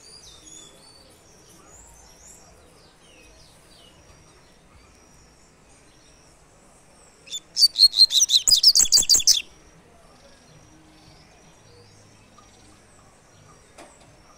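Caged double-collared seedeater (coleirinho) singing its tui-tui song: a loud run of rapid, evenly repeated high notes lasting about two seconds, starting about seven seconds in. Fainter chirps from other birds near the start.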